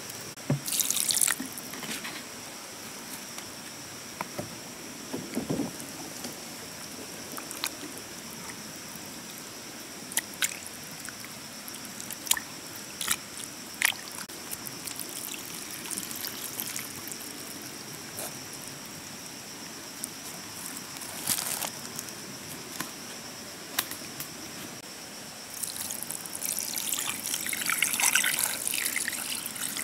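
Water poured in a stream into a metal cooking pot holding pieces of fish, starting about 25 seconds in and the loudest sound. Before that, scattered small clicks and knocks of the fish being handled in the pot.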